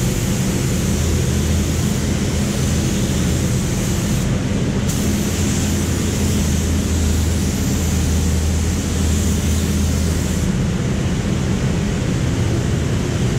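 Paint spray gun hissing with compressed air as clear coat is sprayed, over the steady hum of the spray booth's fans. The hiss breaks off briefly about four seconds in, then eases again about ten seconds in.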